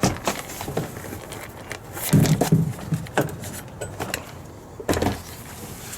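Plastic interior door trim panel being lifted up and off the car door: a series of knocks, clatters and scrapes of plastic against the door, the loudest cluster about two seconds in.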